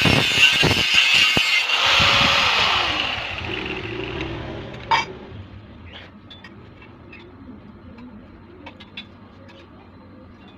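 Electric power tool running loud, switched off about two seconds in and winding down with a falling whine. A sharp click comes about five seconds in, then a few faint light ticks.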